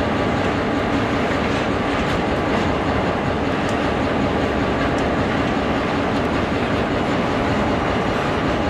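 Diesel freight locomotive running steadily at close range: a loud, even engine noise with a few faint clanks.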